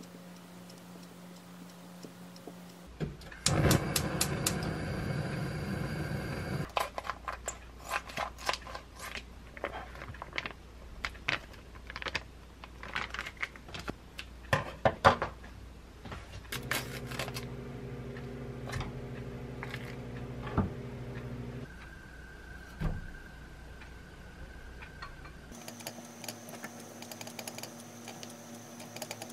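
Kitchen prep sounds over a low room hum: a louder stretch of rustling a few seconds in, then a long run of sharp clicks and snips as kitchen scissors cut cooked food on a plate, loudest about halfway through. Near the end a wooden spoon presses rice into an earthenware pot.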